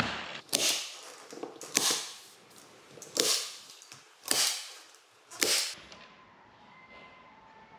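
A manual hand staple gun firing five times, about a second apart, each a sharp snap as it drives a staple to fix the corner strips of a door's plaster-in frame in place.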